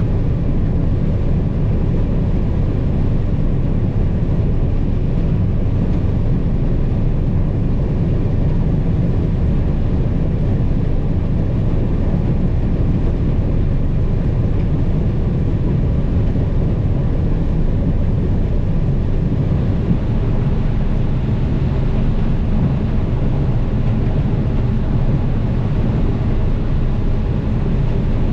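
A vehicle engine running steadily, a constant low rumble with no change in pace.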